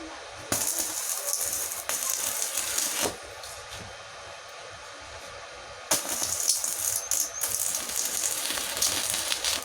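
Stick (MMA) arc welding with a REAIM MMA 120 inverter welder: the arc crackles and sizzles in two runs, the first starting about half a second in and lasting some two and a half seconds, the second starting about six seconds in and lasting to the end.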